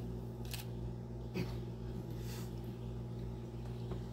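A few faint short clicks over a steady low hum, with no speech.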